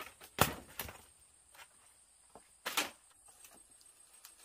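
Sharp knocks from work on bamboo: two strikes close together near the start and a longer knock just under three seconds in, with quiet between.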